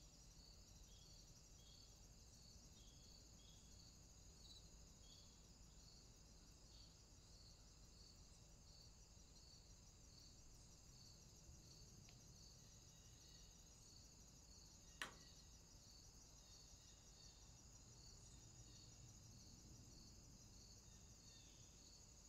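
Faint insects chirring in a garden: a steady high-pitched trill with an even pulse, and a single sharp click about fifteen seconds in.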